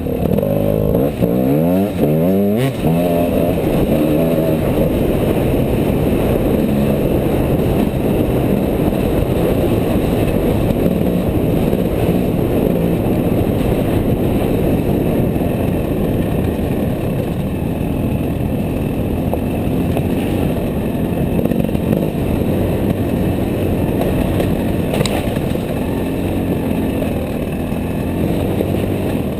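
2010 Gas Gas EC enduro motorcycle's engine revving up through the gears and then running hard under load over a trail, close to the rider's helmet camera.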